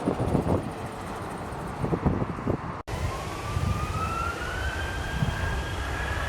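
Jet airliner engine noise, gusty with wind on the microphone at first. After a sudden cut about three seconds in, a whine rises slowly in pitch over a steady rumble.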